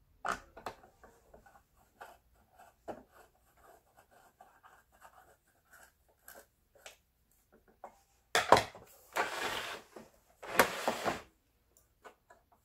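Small scattered clicks and scratches of a screwdriver driving screws into the plastic housing of a Singer 7466 sewing machine. About eight seconds in come three louder scraping, rustling sounds, each up to a second long, as the machine is handled and turned around on the workbench.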